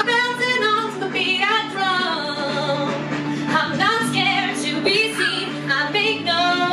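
A woman singing a power-ballad line into a microphone over a backing track, holding long notes with a wide vibrato.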